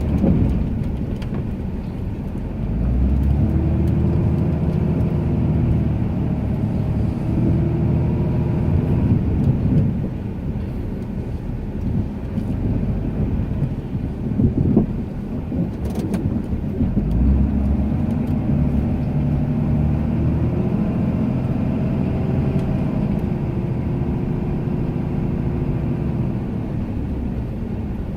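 Ram 2500 pickup's engine running under load while plowing snow, its revs rising and falling in two long surges as the truck pushes and backs off.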